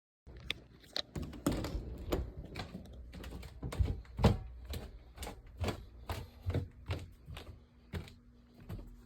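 Irregular clicks and knocks, about two a second, some with a dull thud, the loudest around four seconds in. A faint steady low hum comes in partway through.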